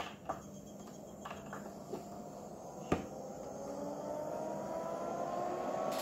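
A few clicks of the button on top of a small desktop air cooler, then its fan motor starts up with a whine that rises slowly in pitch and grows louder.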